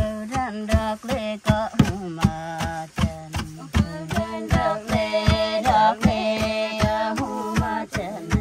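Wooden pestles thudding into a wooden rice-pounding trough, several strokes in turn about three to four times a second, as paddy is pounded and husked. Over the thuds runs a song, a high voice singing a winding melody above a steady low drone, which fades out shortly before the end.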